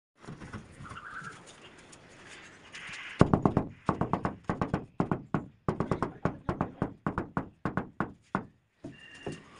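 Cloth-padded wooden pole pounded down on a marble slab, bedding it into the mortar beneath. The dull thuds start about three seconds in and come rapidly, about five a second, for about five seconds.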